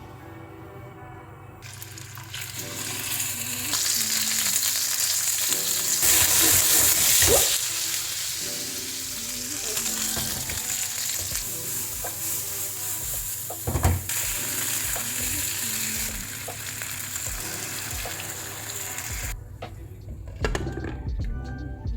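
Food sizzling as it fries in a pan, with stirring, and a sharp knock about two-thirds of the way through; the sizzle fades out near the end. Faint background music plays underneath.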